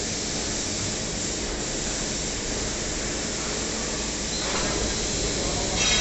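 Steady hissing machine noise from a CNC band-saw line and its motorized slat conveyor, with a short high squeal near the end.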